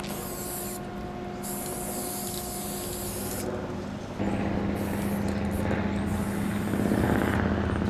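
Aerosol spray paint can hissing in repeated bursts, two longer sprays in the first few seconds and shorter ones later, over a steady low engine hum.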